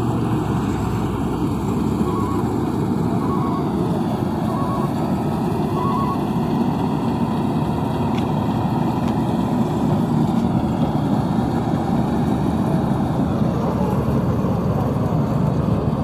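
Maxxi Corn Type G combine harvester running steadily as it cuts and threshes rice, a continuous machine drone.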